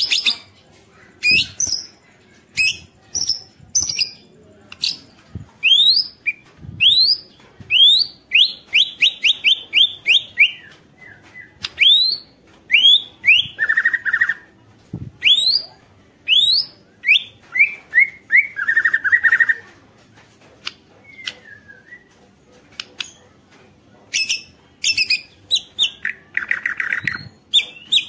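White-rumped shama (murai batu) in full song: quick runs of rising whistled notes mixed with sharp clicks, broken up a few times by short buzzy rattles.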